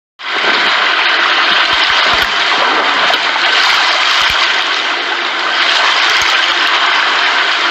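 Rushing white water of a river rapid: a loud, steady, unbroken rush that starts abruptly just after the start.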